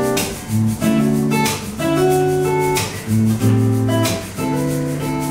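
Acoustic guitar strumming chords with a hand shaker adding crisp rhythmic strokes, without singing.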